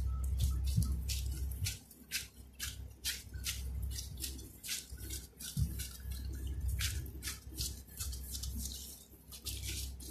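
Hands in plastic gloves rolling and pressing butter-coated dough into a log on a silicone mat, giving sticky, crackly ticks and clicks several times a second.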